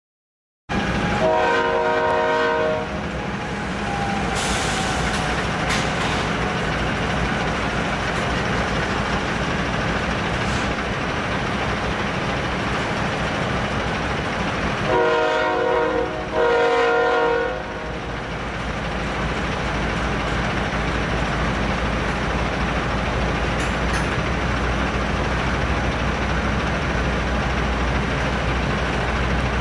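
Freight train of covered hopper cars rolling past with a steady rumble of wheels on rail. A diesel locomotive's air horn sounds one long blast near the start, then two shorter blasts about halfway through.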